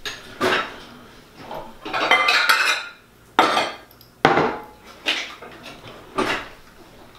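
Metal utensils and a glass measuring cup clattering on a kitchen counter: a string of sharp knocks and clinks about once a second, with a burst of rattling clinks about two seconds in.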